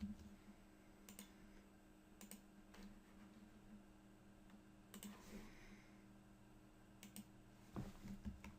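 Faint clicks of a computer mouse and keyboard, about six single clicks spread over several seconds, over a low steady hum.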